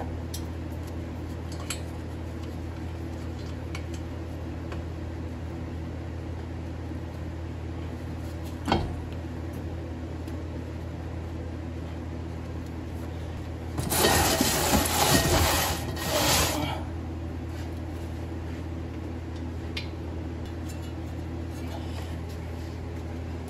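Metal clinking from brake caliper hardware being handled during refitting: one sharp click about a third of the way in, then a clattering burst lasting about two and a half seconds a little past the middle, over a steady low hum.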